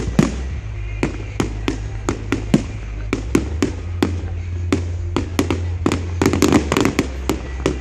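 Fireworks display: a quick run of sharp bangs from bursting shells, several a second. About six seconds in they thicken into a dense crackling flurry, with music playing underneath.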